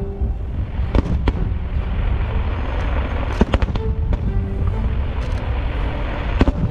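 Fireworks going off in a string of sharp bangs, irregularly spaced, with dense crackling between them. Orchestral music plays underneath.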